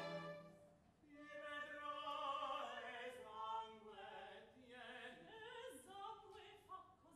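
Opera singers singing in Italian, the voice gliding up and down with vibrato. A harpsichord-and-strings phrase dies away in the first second before the singing begins.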